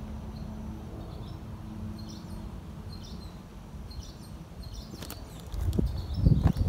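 Outdoor hillside ambience: faint bird chirps over a low rumble and hum, then heavier thuds of footsteps on the ground near the end as the camera carrier walks.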